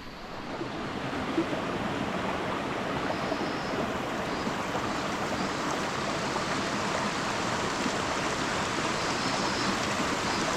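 Steady rush of flowing water, growing a little louder over the first second, then holding until it cuts off abruptly at the end.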